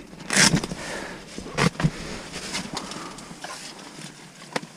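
Rustling of a fabric ice-fishing shelter as a flap is pushed open for light, followed by brief handling scrapes and knocks as the walleye and a measuring board are laid on the ice. A short sharp click comes near the end.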